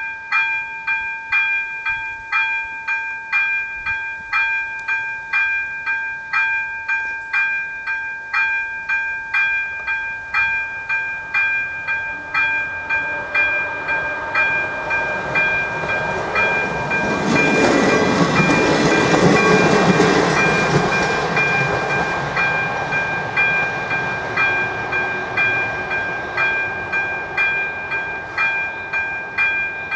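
AŽD 71 level-crossing warning signal's second-generation electronic bell dinging in a steady, rapid rhythm. About halfway through, a passing train's rumble builds, is loudest for a few seconds, then fades, while the bell keeps ringing.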